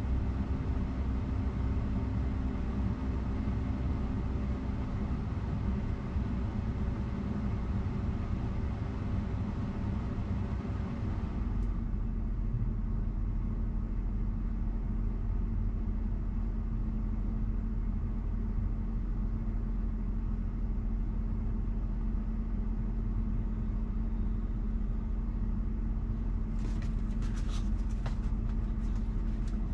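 Steady low hum with a few steady tones from a Tesla's cabin climate system running in Dog Mode. Its upper hiss drops away about a third of the way in. Near the end come faint scratchy clicks.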